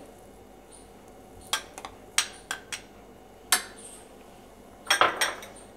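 A steel spoon clinking and tapping against glass bowls as grated boiled potato is scraped off it into batter. The clinks are sharp and scattered, with a quick cluster of several near the end.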